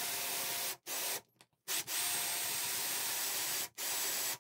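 Power drill boring into a pine board with a 25 mm Forstner bit: a steady whir as the bit cuts, stopping and starting four times with short pauses in between.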